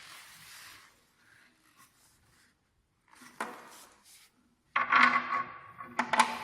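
Handling noises: faint rubbing, a sharp click about three and a half seconds in, then louder clattering near the end.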